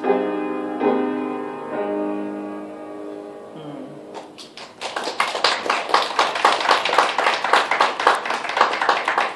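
Piano playing the final chords of the aria's accompaniment, each chord struck and left to fade away. About four seconds in, an audience starts clapping and keeps applauding.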